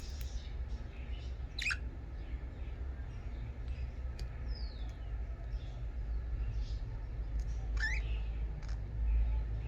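Pet budgerigars chirping: two sharp rising chirps, about six seconds apart, with a few faint short calls and a falling whistle between them, over a steady low hum.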